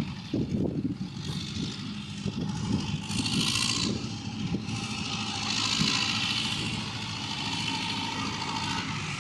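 Diesel engine of a Fortschritt ZT tractor running steadily as it pulls a manure spreader across a field, heard from a distance. A hiss swells twice over the engine hum.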